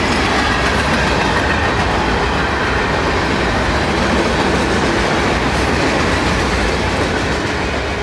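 Freight train cars rolling past on the track: a steady, loud noise of steel wheels on rail.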